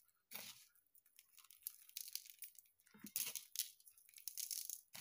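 Hands handling craft materials (glitter, bead strands and a Croc clog) make scratchy rustling and crinkling in several irregular bursts. The loudest stretch is about three to four and a half seconds in.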